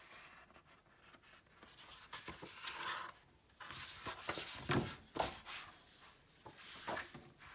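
Hardback book being handled on a table: faint rustling and rubbing of its thick black endpapers as they are turned, then a few light taps as the book is shifted about in the second half.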